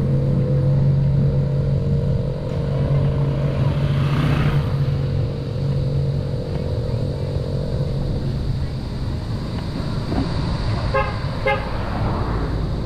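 A large vehicle's engine idling, a steady low hum that fades away about halfway through. Near the end, a vehicle horn toots twice, briefly.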